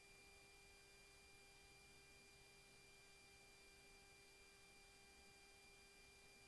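Near silence: a faint steady hiss with a few constant faint tones, the noise floor of a soundless track.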